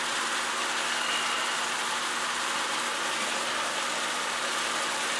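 Vegetables sizzling steadily in a hot steel wok: an even frying hiss.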